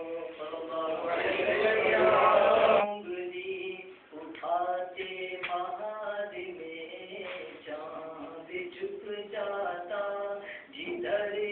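A man chanting an unaccompanied devotional recitation in long, held and ornamented notes. The first three seconds are fuller and louder, as if other voices join in, and then a single voice carries on.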